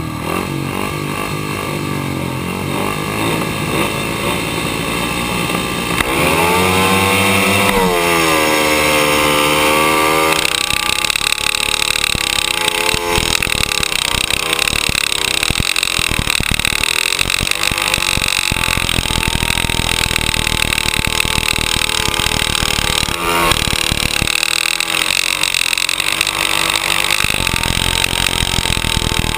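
Speedway motorcycle engine from the rider's helmet: it is held revving at the start line, then about six seconds in it opens up fully and the pitch climbs steeply as the bike launches. After that it runs hard at high revs with wind rushing over the microphone, the engine note easing and picking up again through the bends.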